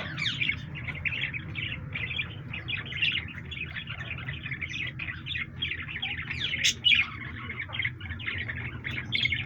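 A flock of small caged parrots chirping and chattering non-stop in many overlapping short calls, with one louder, sharp call about two-thirds of the way through.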